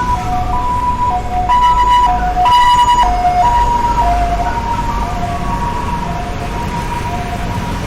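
Emergency vehicle's two-tone hi-lo siren, a high and a low note alternating about every half second, loudest about three seconds in, then fading with a slight drop in pitch as it passes. Steady city traffic rumble underneath.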